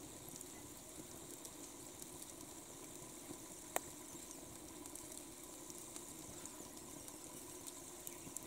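Faint steady background hiss with small scattered ticks and one sharp click about four seconds in.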